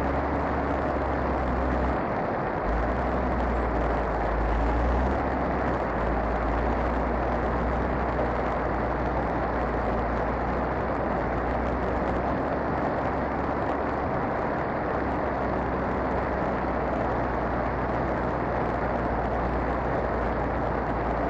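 A vehicle engine running steadily at idle under a constant rushing noise, with the low rumble briefly dropping out about two seconds in.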